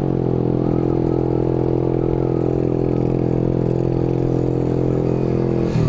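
Motorcycle engine running at a steady cruising speed through a loud aftermarket exhaust, holding one even note, with a brief change in note near the end.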